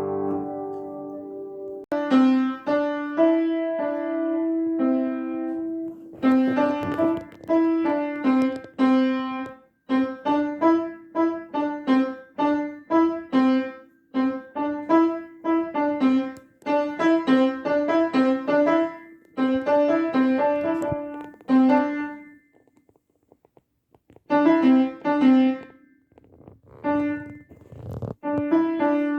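Piano playing a melody of separate struck notes in short repeated phrases, broken by a pause of about two seconds late on.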